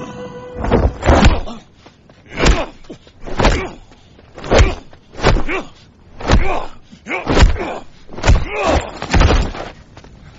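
A run of about ten heavy punch-like thuds and whacks, roughly one a second: staged fight sound effects.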